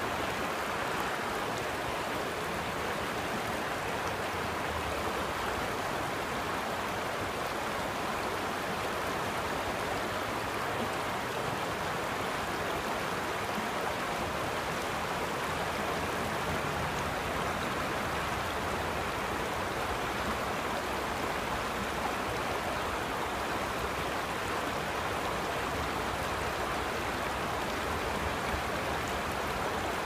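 Shallow, rocky creek rushing over and between stones, a steady, even rush of flowing water.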